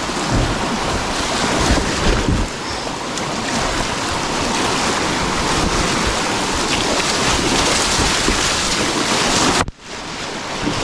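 Whitewater rushing and splashing right around a kayak running a rapid, with wind buffeting the microphone. The sound cuts out for a moment near the end and then comes back.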